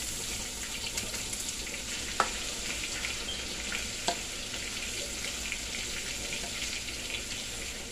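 Sliced sausage and shrimp sizzling in a wok while being stirred with a spatula, a steady frying hiss. There are two sharp knocks, about two and four seconds in.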